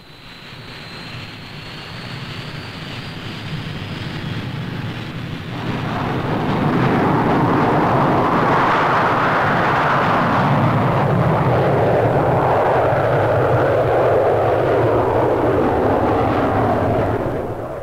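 de Havilland DH.110's two Rolls-Royce Avon jet engines on take-off. A high whine rises slightly over the first few seconds, then loud jet noise swells in about six seconds in as the fighter rolls, lifts off and climbs away, and it dies down near the end.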